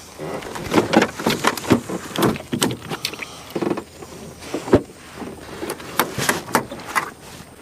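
Irregular knocks, clatter and rattling from handling things in a small fishing boat, the loudest a sharp thud nearly five seconds in.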